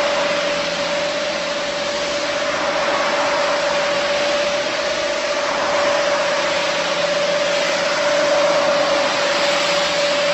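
Single-disc rotary floor machine running steadily while its brush scrubs a shampoo-foamed rug: a constant motor hum with one held tone over a broad hiss.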